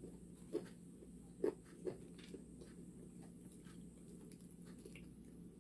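Faint eating sounds: a few soft mouth clicks and smacks in the first couple of seconds, over a low steady hum.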